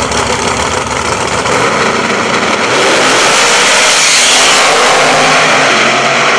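Two drag-racing engines, a pickup truck's and a drag car's, running at the start line, then going to full throttle as the cars launch: the sound steps up about three seconds in and peaks as the drag car passes close by.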